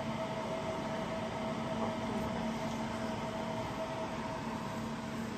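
Steady machine hum and fan noise, with a constant pitched tone over an even hiss, from the UV laser marking machine's cooling fan while it stands idle after marking.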